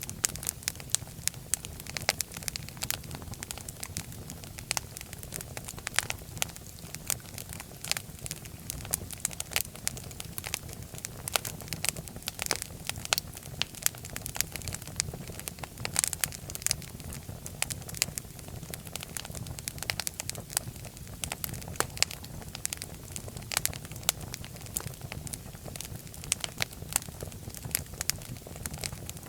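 Fireplace fire crackling, with frequent sharp pops and snaps over a steady low rumble of the flames.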